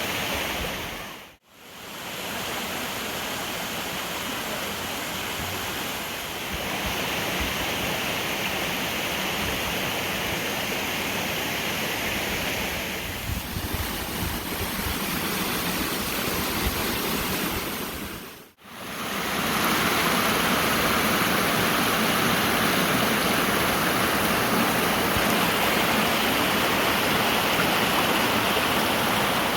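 Waterfall on a mountain creek: a steady rush of falling water. It fades out and straight back in twice, once near the start and again past the middle, and the last part is louder and brighter.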